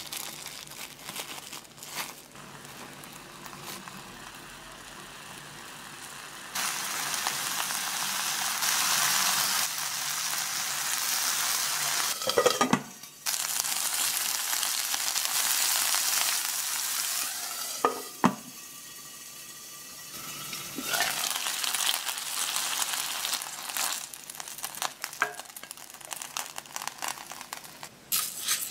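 Small ground-meat hamburg steak patties sizzling in oil in an electric skillet. The loud sizzle starts about six seconds in and breaks off twice, with light clicks of chopsticks turning the patties. Before the sizzle, quieter crinkling of plastic wrap as the meat is shaped.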